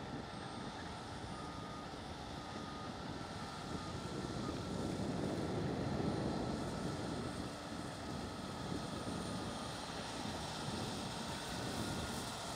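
Combine harvester working a field: a steady engine and machinery drone that swells about five seconds in, then eases off a little.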